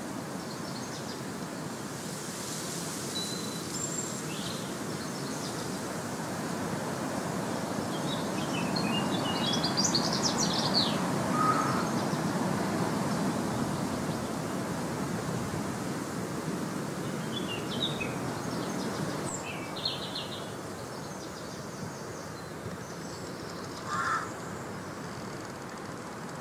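Outdoor ambience of small birds chirping, with short high calls now and then and a cluster about a third of the way in. Under them is a steady rushing background noise that swells in the middle. A single louder, lower call comes near the end.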